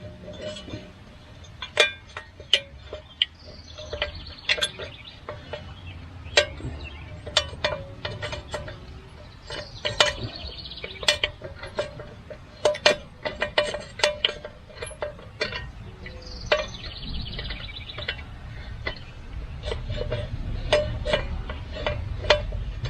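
Irregular sharp metal clinks and taps of bolts and hardware being worked into a tractor PTO slip clutch. A bird calls three times in the background.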